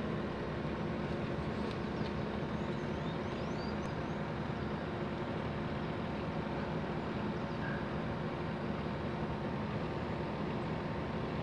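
Steady low mechanical hum, with a few faint high chirps in the first few seconds.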